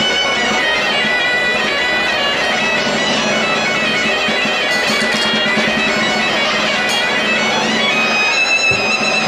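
Asturian bagpipe (gaita) playing a melody over a steady drone.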